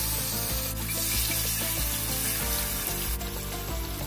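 Marinated chicken pieces sizzling steadily in hot oil in a grill pan as more pieces are laid in.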